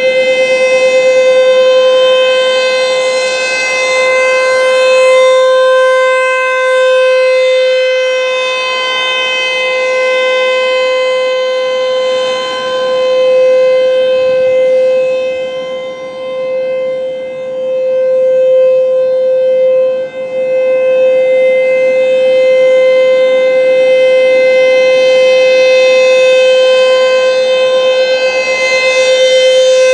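ASC T-128 rotating electromechanical outdoor warning siren sounding a steady-pitch alert tone, loud, its level slowly swelling and fading as the horn turns away and back.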